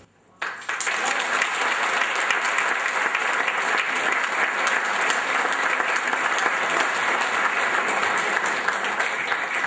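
Audience applauding, a steady mass of hand-clapping that starts abruptly about half a second in.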